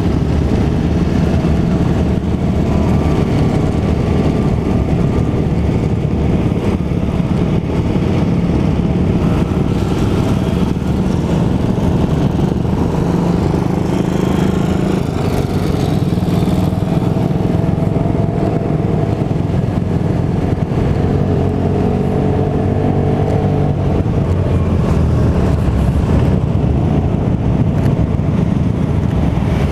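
A Vespa scooter's engine running steadily under way, mixed with the engines of motorcycles riding close behind.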